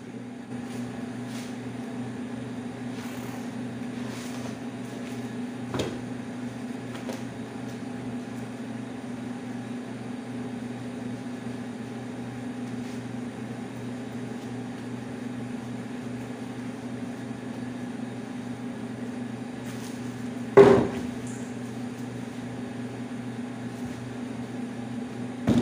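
Steady mechanical hum of a running appliance, with a sharp knock about six seconds in and a louder knock about twenty seconds in, as a chair seat and foam are handled on a table.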